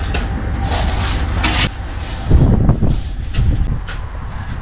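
Truck engine running with a steady low rumble. Over it come short scraping bursts about a second in and a few dull knocks just past the middle.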